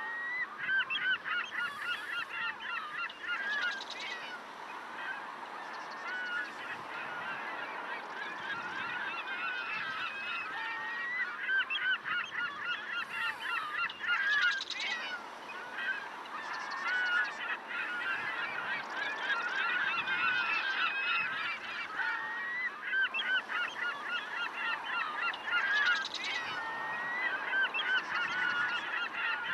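A large flock of birds calling, many short wavering calls overlapping without a break, swelling louder a few times.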